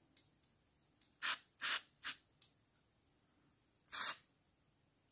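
Aerosol lubricant spray fired through a straw nozzle in short hissing bursts onto a spinning reel's parts: four quick bursts about a second in, then one more near the end.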